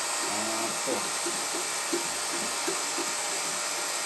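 Refrigeration vacuum pump running steadily, evacuating a small refrigerator's sealed system before the refrigerant charge.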